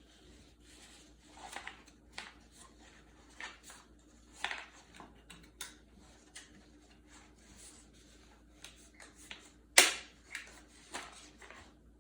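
Construction paper rustling and crinkling as strips are handled and gathered together, in scattered short bursts, with one sharp stapler snap about ten seconds in.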